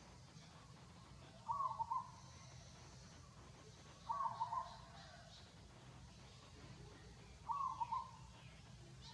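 A short animal call with a wavering pitch, repeated three times a few seconds apart over a low steady background noise.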